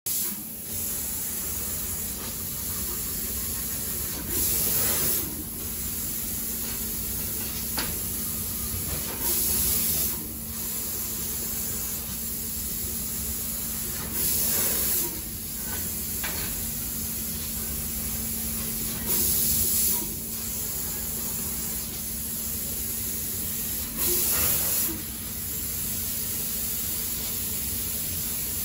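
12 kW laser cutting machine cutting steel plate: bursts of loud hissing about a second long recur roughly every five seconds over a steady machine hum.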